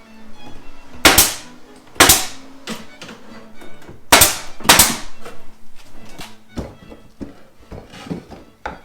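Sharp wooden knocks: four loud ones in two pairs, with smaller taps between, over background music.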